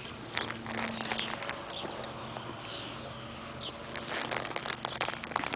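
Outdoor field ambience: a few short bird chirps and a faint steady insect buzz, with footsteps and rustling through grass that grow busier after about four seconds.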